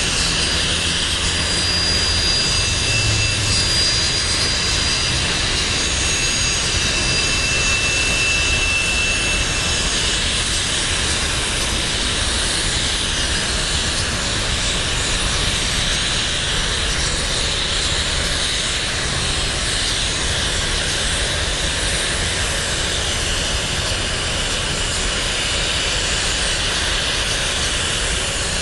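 Freight cars of a BNSF merchandise train rolling past: a steady rumble of steel wheels on the rails, with thin high-pitched squeals during the first ten seconds or so.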